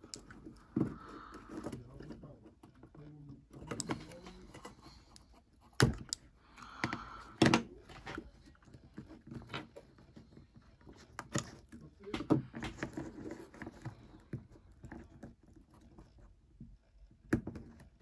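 Small parts of an opened iPod being handled on a desk: light clicks, taps and rubbing as the hard drive in its rubber bumper is lifted off the logic board and set down. A few sharper knocks come about six, seven and a half, eleven and seventeen seconds in.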